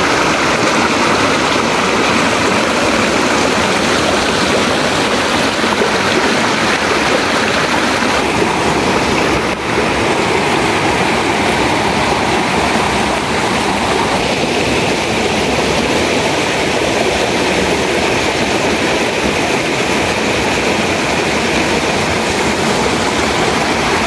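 Water of a small forest waterfall rushing and splashing over rock boulders close to the microphone: a loud, steady rush whose tone shifts a little about 8 and 14 seconds in.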